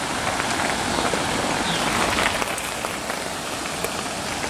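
Steady rushing splash of water spilling over a small stepped stone cascade into a pond.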